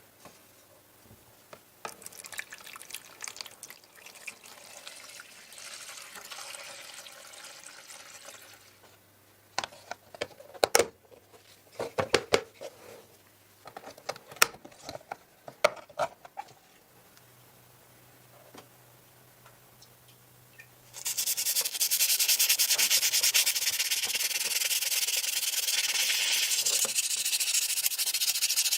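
Rubbing and scraping by hand with a handful of sharp knocks, then, about three-quarters of the way through, a power sander starts and runs loud and steady.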